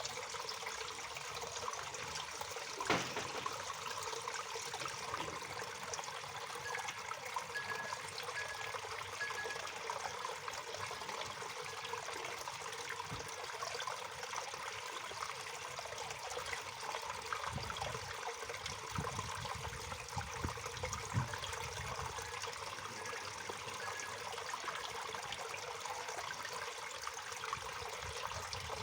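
Waterfall: a steady rush of falling water, with one brief sharp tap about three seconds in.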